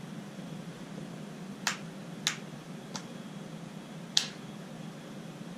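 Four sharp, short clicks, irregularly spaced over about two and a half seconds, the last the loudest, over a steady low hum.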